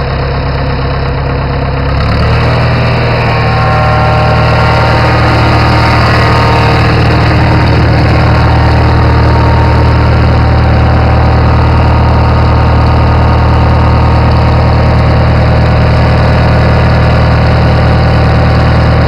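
Farmall 450 tractor engine running, revving up about two seconds in and holding at a steady higher speed. The engine has a knock that the owner says means it needs a rebuild.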